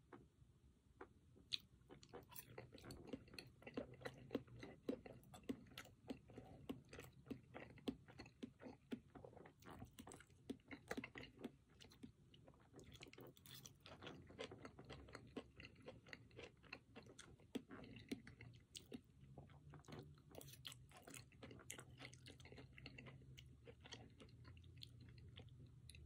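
Quiet, close-miked chewing of a mouthful of oven-roasted potato, with irregular wet mouth clicks and soft crunches that start about two seconds in and keep going.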